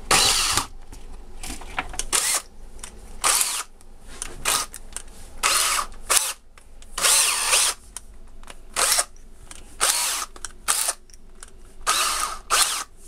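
Power drill with a screwdriver bit running in about a dozen short, uneven bursts, driving the terminal screws on an electrical switch.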